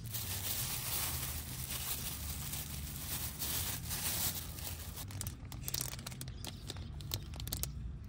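Plastic food packaging being handled: a dense crinkling and rustling for the first few seconds, then a run of sharp crackles near the end.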